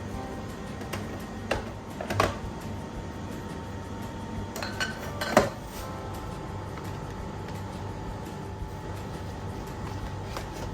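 Containers and food packs being set down and shifted on fridge shelves: a few knocks and clinks, the loudest about five seconds in, over a steady low hum.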